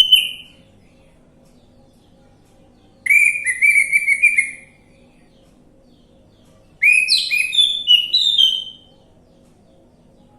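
Orange-headed thrush singing: short phrases of rapid, rising whistled notes, each lasting under two seconds, repeated every few seconds with quiet gaps between.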